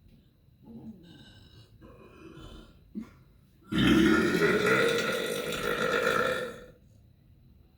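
A person's deliberate, long burp lasting about three seconds, starting about halfway in, preceded by a few quieter throat sounds.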